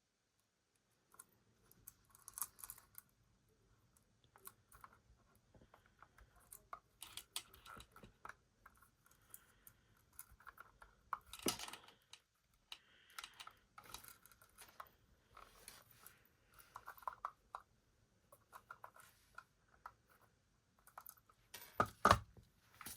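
Hands handling a small album kit and its packaging: scattered light clicks, taps and rustling, with a louder rustle about eleven seconds in and again near the end.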